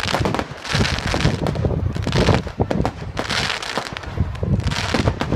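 Aerial fireworks going off in quick succession: repeated bangs with dense crackling from the bursting shells.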